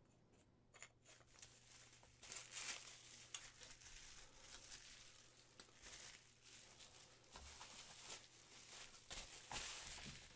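Faint, irregular crinkling and crackling of bubble wrap as resin model parts are handled and set down on it.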